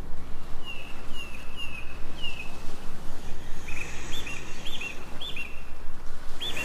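Steady rush of river water with birds calling over it: four short falling chirps in the first couple of seconds, then a run of repeated hooked whistled notes about every half second.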